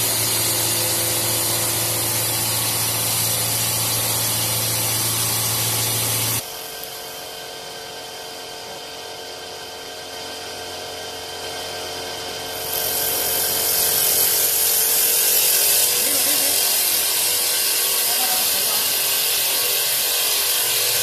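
Three-spindle CNC wood turning lathe running and cutting spinning wood blanks into turned table legs: a steady hum under a loud hiss of cutting. About six seconds in it drops abruptly to a quieter run, and it turns loud again just past the middle.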